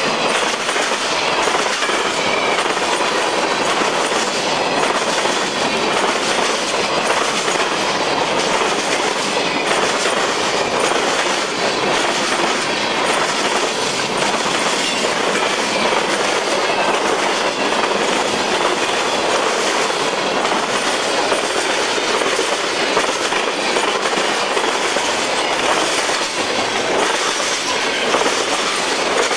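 Freight cars (boxcars, covered hoppers and tank cars) rolling past close by: the steady, loud noise of steel wheels running on the rails.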